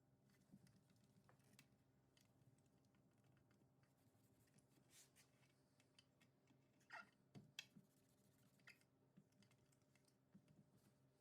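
Near silence, with faint scattered small clicks and taps and a short cluster of slightly louder knocks about seven seconds in.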